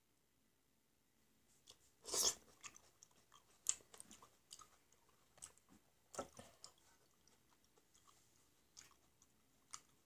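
Close-up mouth sounds of eating black grapes: scattered wet chewing and biting clicks, the loudest about two seconds in.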